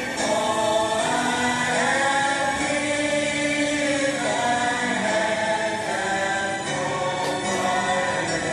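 Several voices singing together in a gospel or worship song, with long held notes.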